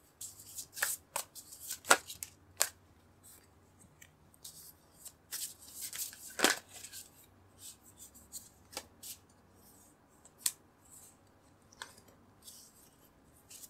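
Tarot cards being shuffled by hand and dealt onto the table: irregular rustling and sharp card snaps, the loudest about two seconds and six and a half seconds in.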